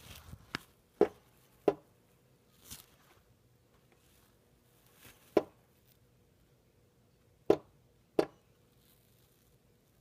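American robin pecking at a window pane with its bill: six sharp, single taps at irregular intervals, several in quick pairs, with a softer rustle or two between. Repeated window pecking like this is typical of a breeding-season robin attacking its own reflection.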